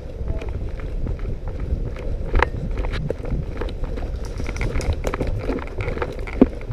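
Footsteps of someone running over forest floor, irregular crunches of leaves and twigs, over a steady low rumble; the crunches come thicker and louder in the second half.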